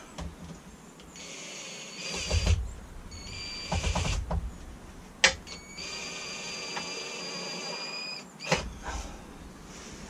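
Cordless drill-driver motor whining at a steady pitch in three runs, the last and longest about two and a half seconds, driving a 1-inch screw through thin galvanised steel roofing sheet into a wooden hive roof. There are a couple of sharp clicks in between.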